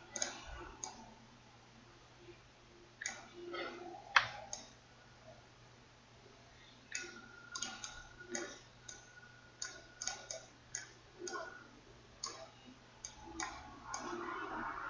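Computer mouse clicking: scattered single clicks, sparse at first and coming closer together in the second half.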